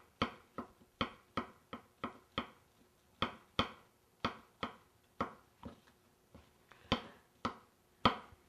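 Kitchen knife dicing portobello mushrooms on a wooden cutting board: a steady run of sharp knocks of the blade striking the board, about two or three a second.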